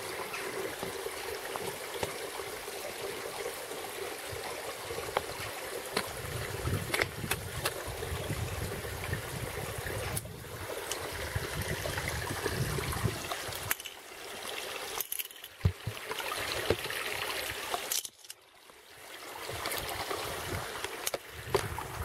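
Gorge stream running over rocks, a steady rush of water with occasional sharp clicks. The sound dips briefly twice in the last third.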